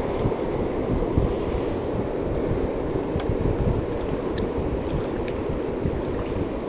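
Steady rush of water from river rapids.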